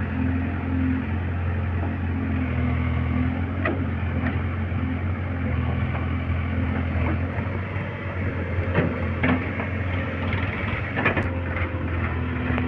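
Heavy diesel engine running steadily at a low, even speed, with several short knocks and clanks scattered over it.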